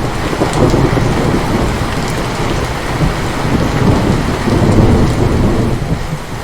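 Heavy rain hissing steadily under a long, rolling rumble of thunder, which eases briefly near the end.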